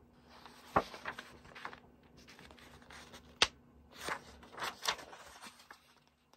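Pages of a paper prayer journal being opened and turned, with paper rustling and swishing and two sharp taps, about a second in and again around three and a half seconds in.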